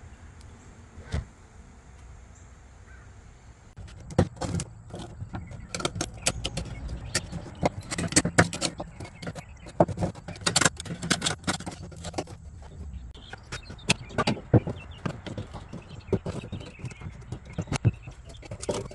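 Irregular metallic clicking and scraping from hand work on rusted locking pliers: one sharp click about a second in, then from about four seconds in a dense, uneven run of clinks and scrapes, several a second.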